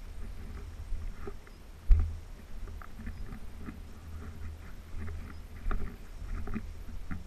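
Footsteps swishing through dry grass and weeds, heard from a body-worn camera, over a steady low rumble of movement against the microphone. There is a sharp knock about two seconds in.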